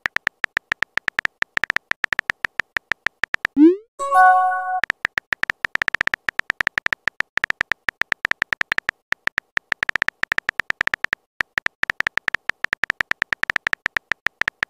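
Simulated phone-keyboard typing: a rapid, even stream of short electronic clicks as a message is typed letter by letter. About four seconds in, a message is sent with a quick rising pop and a short chime.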